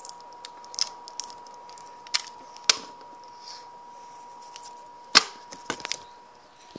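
Handling noise: scattered sharp clicks and taps, the loudest about five seconds in, with a few brief rustles, as the paper cut-out is picked up and handled close to the microphone. Under them runs a steady faint high-pitched tone.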